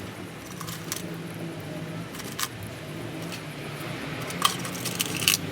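Metal tools and parts clinking and tapping: a handful of short, sharp clinks, the loudest about four and a half seconds in, over a steady low hum.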